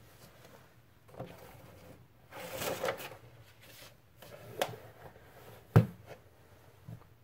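Handling of a prayer book, with its pages being turned: a papery rustle a couple of seconds in, a few light clicks, and a sharp knock just before six seconds.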